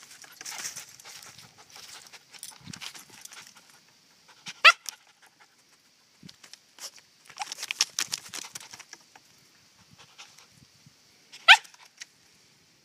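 Havanese dog scrabbling and rustling in dry leaves at a log, hunting a chipmunk hidden there, with two short high yips, one a little under five seconds in and one near the end.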